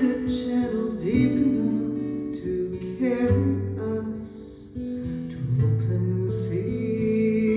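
Acoustic guitar strumming a slow song accompaniment, with a new chord struck about every two seconds.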